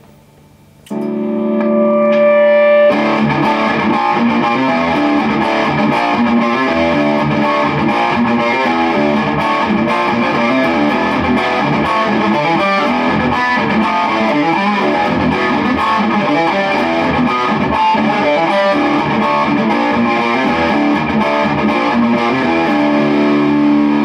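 Electric guitar, a Squier Standard Stratocaster with white aftermarket pickups, played through a Peavey Valve King tube amp with distortion. A chord rings out about a second in, then a fast run of distorted notes and riffs follows, and a chord is held again near the end.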